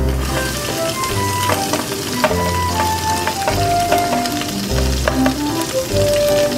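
Carrot, konjac and burdock strips frying in sesame oil in a saucepan, a steady sizzle, under background music with a melody and bass line.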